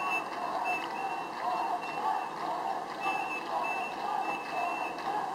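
A repeating electronic warning tone: a short rising-and-falling tone about once a second, over the steady hubbub of a large crowd.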